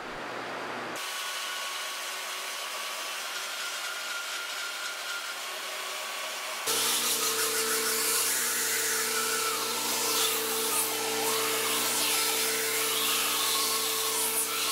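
Knife-making belt grinder running while a wooden handle is sanded against the abrasive belt: a steady grinding rasp over a continuous motor hum. About seven seconds in the sound turns suddenly louder and the hum becomes clear.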